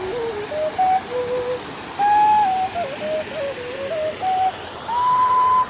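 A simple melody of held notes stepping up and down, played on one pure-toned, flute-like voice, over the steady rush of a waterfall.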